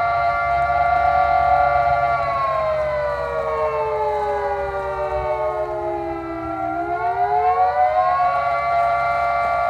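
Air-raid-style house siren sounding a steady multi-tone chord; about two seconds in its pitch slowly sags and the sound dips, then near the end it winds quickly back up to its steady pitch.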